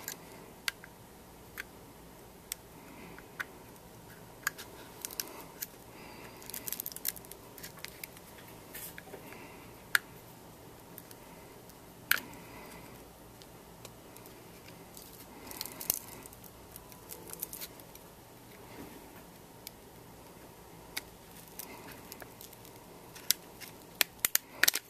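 Flat pry tool working along the edge of a cracked iPhone 5, prying the front screen assembly loose from the frame: scattered sharp clicks and short crackly clusters every few seconds.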